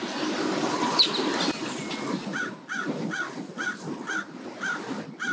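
A bird giving a rapid series of harsh, identical calls, about two a second, starting about halfway through, over low background noise.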